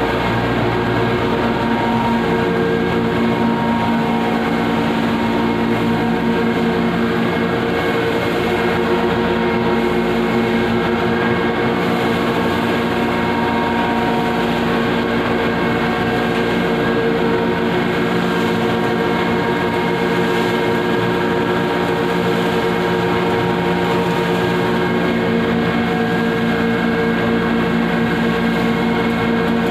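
Red chilli powder grinding plant machinery running: a loud, steady mechanical drone with a constant hum of several tones.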